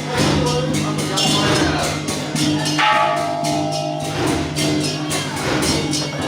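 Music with busy, clashing percussion over a steady held tone.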